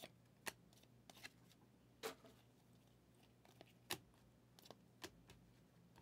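A stack of Panini Mosaic football trading cards being thumbed through by hand. Each card slides off the stack with a faint sharp flick, at irregular intervals of roughly one a second.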